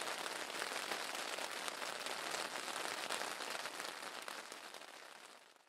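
Rain falling steadily through the night, a dense patter of drops that fades out near the end.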